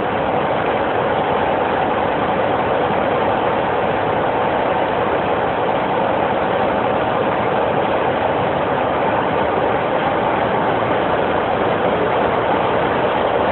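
Class 47 diesel locomotive's Sulzer V12 engine running steadily at idle, a loud, even, unchanging engine note.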